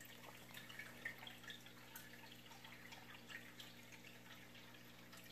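Near silence: a few faint light clicks and taps as small baitcasting reel parts are handled, over a faint steady hum.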